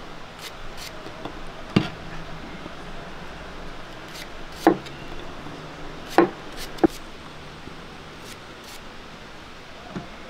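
A few sharp knocks on wood, spread out irregularly (one about 2 s in, one at about 4.5 s, and a close pair around 6 to 7 s), with fainter taps between, from knife and food-preparation work on a wooden board.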